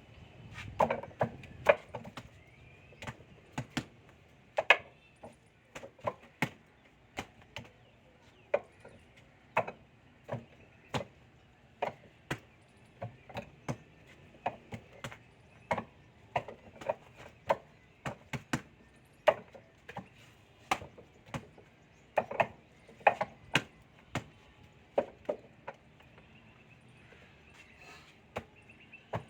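Wing Chun wooden dummy being struck by a practitioner's forearms and hands: a string of sharp wooden knocks, irregularly spaced and often coming in quick clusters of two or three.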